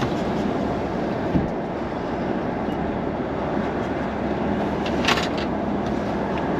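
Steady car-interior running noise from a car moving slowly, engine and road rumble heard from inside the cabin, with a low knock about a second and a half in and a brief sharp rattle about five seconds in.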